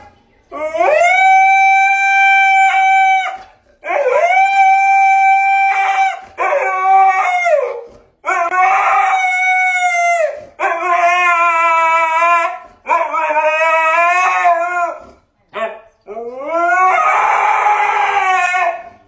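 A dog howling in a run of about seven long, drawn-out howls. Most rise at the start and then hold steady; those in the second half waver up and down.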